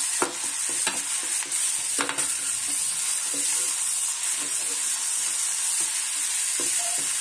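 Potato and eggplant pieces frying in oil in a steel kadai with a steady sizzle, as a steel spoon stirs them, scraping and clinking against the pan now and then.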